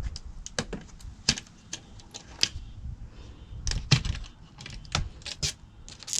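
Irregular clicks, knocks and light rattles of things being handled, a dozen or more scattered over several seconds with no steady rhythm.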